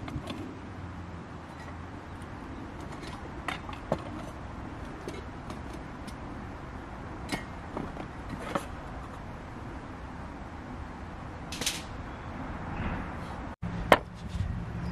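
Scattered light clicks and knocks of camp gear being handled while a meal is set out, over a steady low rumble.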